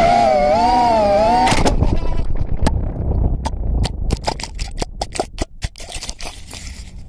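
FPV racing quadcopter's four brushless motors (T-Motor F40 2400kv on 4S) whining, the pitch wavering with throttle, then cutting off suddenly about a second and a half in as the quad crashes. A string of sharp, irregular knocks and clicks follows over the next few seconds as the ejected onboard camera tumbles into the grass.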